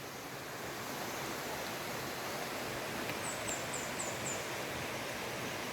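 Steady rush of a forest river's water. A little past three seconds in, a small bird gives a quick run of about five high chirps.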